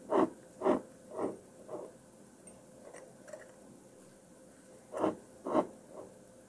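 Short, soft taps and rustles of gloved hands and tweezers handling small watch parts at glass jars and a plastic parts tray: four in the first two seconds, then three more about five to six seconds in.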